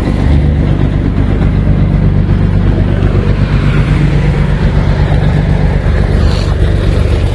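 Scania-Vabis diesel truck engine running with a steady deep rumble as it pulls slowly away, towing a second truck on a rigid tow bar.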